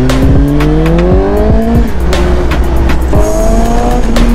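Suzuki GSX-S750's 749 cc inline-four, fitted with an aftermarket M4 long-canister exhaust, accelerating under way. Its pitch rises, drops at an upshift about two seconds in, then rises again and drops once more near the end. Irregular wind thumps hit the microphone throughout.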